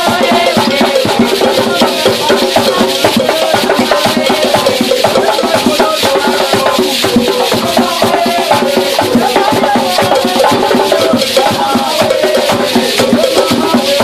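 Live Gwo ka music: ka hand drums beating a steady rhythm, a gourd shaker (chacha) rattling along, and voices singing over them.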